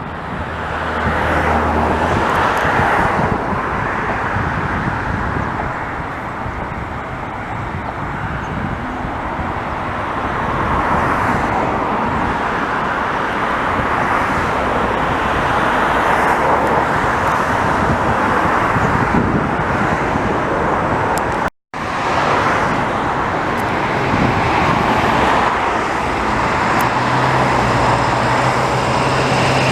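Steady hiss of road traffic, swelling and fading as vehicles pass. The sound cuts out completely for an instant about two-thirds of the way through.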